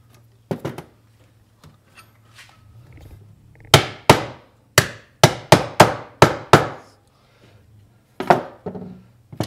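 Hammer striking the corner of a wooden drawer, tapping the freshly glued joint together: a couple of light knocks, then a quick run of about eight sharp blows, and two more knocks near the end.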